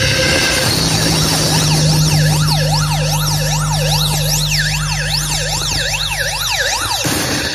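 A miniature sound-system speaker stack plays a loud test sound for a decibel-meter reading. A steady deep bass tone is joined about a second and a half in by a siren-like tone sweeping rapidly up and down over and over, and the sound cuts off near the end.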